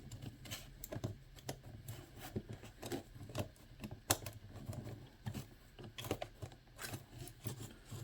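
Irregular light clicks and taps of hands working on a graphics card's plastic fan shroud, pressing tape back down over the fan wire, over a low steady hum.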